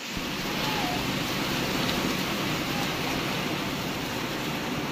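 Heavy rain falling steadily, a broad even hiss that holds without change.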